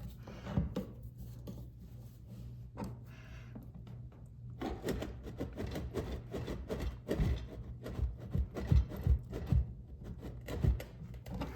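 Tools scraping, clicking and knocking against a stuck faucet cartridge while it is pried and worked loose by hand. The handling is sparse at first and becomes a dense run of rubs and knocks from about halfway through.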